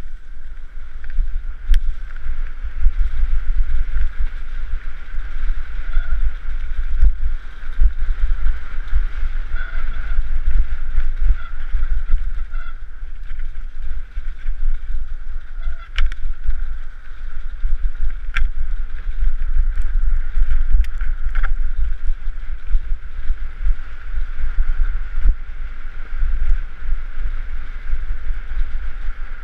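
Heavy wind buffeting on a helmet-mounted camera's microphone, with the rumble and rattle of a mountain bike's tyres running fast over a muddy, stony trail and a few light clicks.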